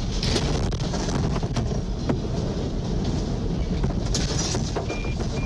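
Tsunami floodwater surging around parked cars: a steady, heavy rumble of rushing water and churning debris with scattered knocks and cracks. Two short high beeps sound near the end.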